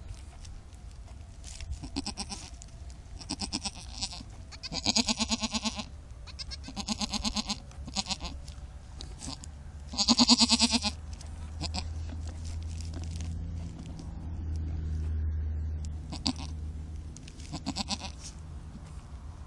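Goats bleating, a nanny goat with her newborn kid: a series of quavering bleats, the loudest and longest about five and ten seconds in, with shorter ones before, between and near the end. A low steady hum swells between the bleats from about twelve to seventeen seconds.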